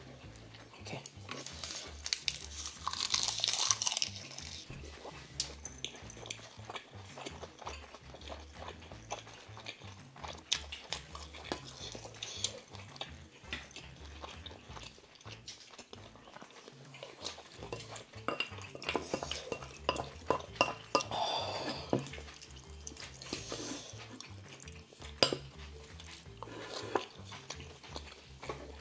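Eating sounds: wooden chopsticks and a wooden spoon clicking against plates and a stew pan, with chewing and the crunch of crisp seasoned laver (gim) wraps, loudest a couple of seconds in.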